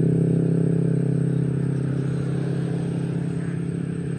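A motor engine running at a steady, unchanging pitch, slowly fading.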